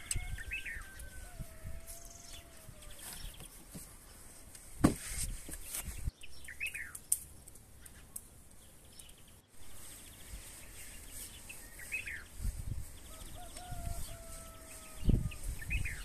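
Small birds chirping now and then, with a rooster crowing twice, at the start and again near the end. A few short knocks, the loudest about five seconds in.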